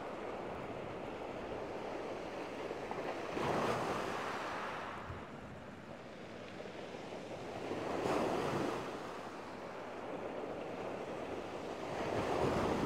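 Small waves breaking on a shingle beach, three surges about every four to five seconds, with the wash of water in between.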